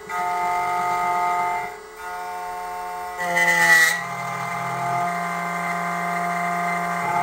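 SEC-E9 automatic key-cutting machine running: a steady motor whir with a brief dip near two seconds, and a louder, harsher burst just after three seconds as the cutter works the key blade.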